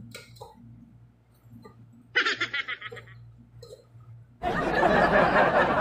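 A person laughing briefly, high-pitched, about two seconds in; then a loud steady rushing noise starts suddenly near the end.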